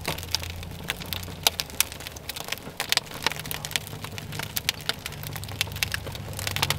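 Wood fire crackling in a fire pit, with irregular sharp pops and snaps, over a low steady hum.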